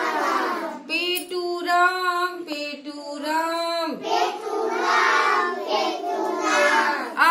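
A group of young children chanting a Hindi rhyme together in a sing-song chorus, two lines with held notes.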